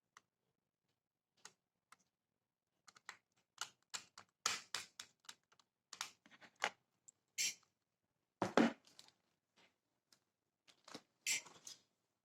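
Hands and tools working on a laptop: a run of small clicks, taps and scrapes, with a heavier knock about eight seconds in.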